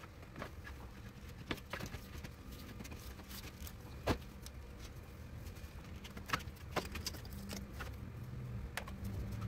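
Scattered plastic clicks and knocks as a car's electric radiator cooling fan and its plastic shroud are worked down into place against the radiator, the loudest knock about four seconds in. A steady low rumble lies underneath.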